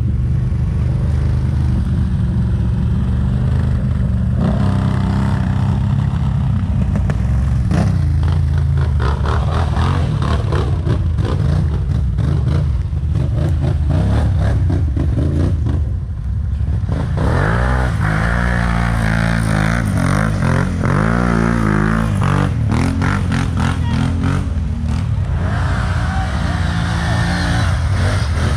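ATV engine running hard as it is ridden, steady at first, then rising and falling in pitch from a little past halfway as the throttle is worked.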